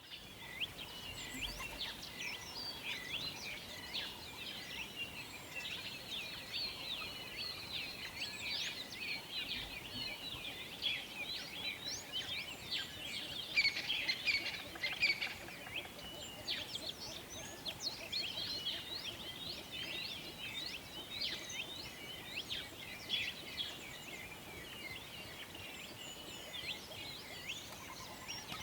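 Many small birds chirping and singing at once, a dense stream of short, quick high chirps that overlap with no pause, busiest about halfway through.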